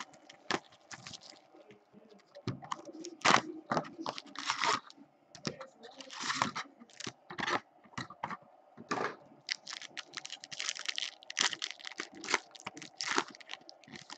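Plastic wrapping on hockey card boxes and packs crinkling and tearing as they are unwrapped and handled, in quick irregular crackles and rustles.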